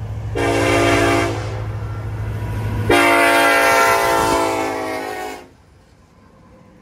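BNSF SD70ACe diesel-electric locomotive's air horn sounds a chord, a short blast and then a long one, over the low rumble of the passing locomotives. The horn cuts off sharply near the end.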